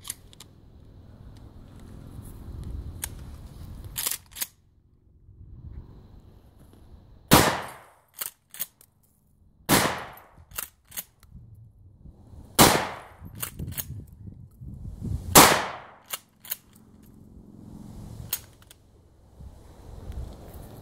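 Mossberg 500 pump-action shotgun fired four times, about two and a half to three seconds apart, each shot a loud sharp blast with a short ringing tail. Between the shots come smaller metallic clacks of the pump being racked to chamber the next shell, and a couple of clicks of the action being worked before the first shot.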